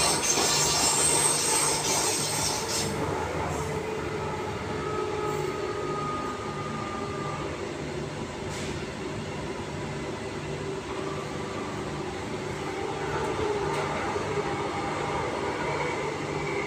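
Transperth A-series electric railcar heard from inside the carriage while running: steady rolling and running noise with a low hum pulsing about twice a second. A loud high-pitched hiss fades out about three seconds in.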